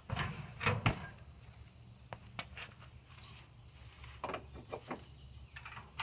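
Scattered knocks and footfalls as a person climbs off an ATV and steps down from a utility trailer, the loudest thumps coming in the first second and fainter single knocks after.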